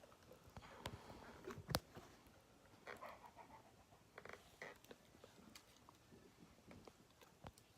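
Faint handling noise from a plastic action figure: a few small clicks and soft rustles, with the loudest click a little under two seconds in.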